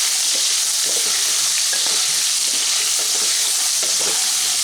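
Cubed potatoes frying in hot mustard oil in a kadai, a steady sizzle, with the occasional scrape of stirring.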